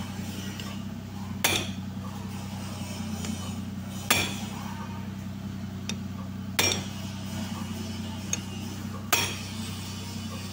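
Hammer blows on a steel drift bar driving the pinion shaft out of a DA64V differential carrier: four sharp metal-on-metal strikes, about two and a half seconds apart, over a steady low hum.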